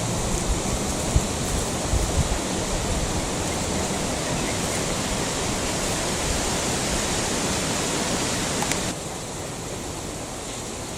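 Steady rushing noise of flowing water, with a few low thumps in the first couple of seconds; it drops in level about nine seconds in.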